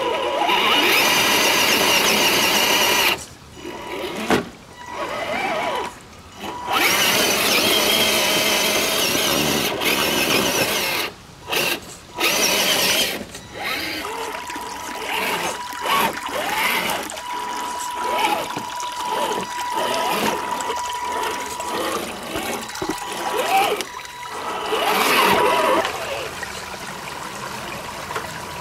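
Electric motor and geartrain of an Axial SCX10 II RC crawler whining as it drives through mud and stream water, its pitch wavering with the throttle. It cuts out briefly several times in the first half, with water splashing and trickling.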